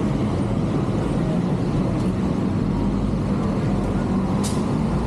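Street traffic: vehicle engines running and passing in a steady low rumble, with one short sharp sound about four and a half seconds in.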